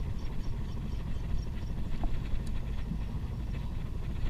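Fishing boat's engine running with a steady low rumble, with faint light ticks above it.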